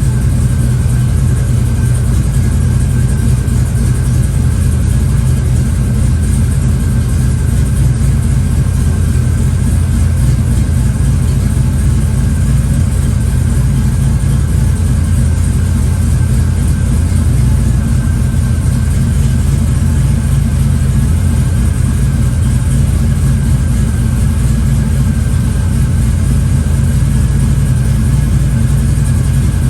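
Vehicle engine idling steadily, with a faint steady whine above the engine note.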